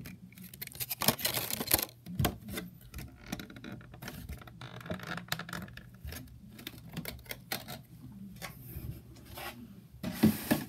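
Clear plastic packaging tray being handled: irregular crinkles, clicks and taps, with louder rustling about a second in and again near the end.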